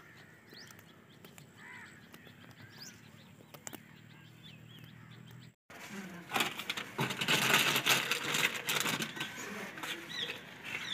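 Dry sticks and roots rustling, scraping and snapping as they are packed by hand into a clay mud stove, with a plastic wrapper crinkling among them: a dense run of clicks and crackles. Before this, a few seconds of faint outdoor quiet with a couple of short bird chirps.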